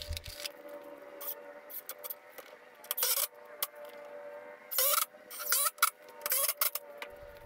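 Short scraping and rubbing of pressure-treated lumber being handled and slid on a concrete floor, several brief scrapes in the second half, over a faint steady hum.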